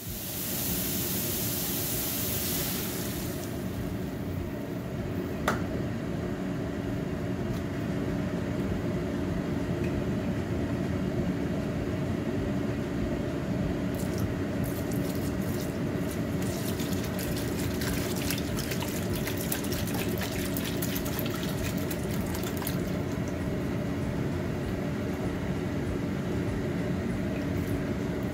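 Chicken, capsicum and sun-dried tomatoes sizzling in a hot aluminium pot as half-and-half cream is poured in, with a crackle of liquid hitting the hot pan through the middle, over a steady low hum. A single sharp click comes about five seconds in.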